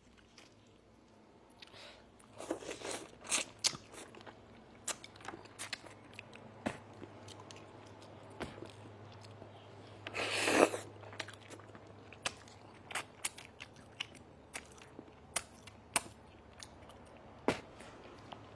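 A person eating: chewing and crunching food, with many short irregular clicks and smacks, and one longer, louder noisy burst about ten seconds in.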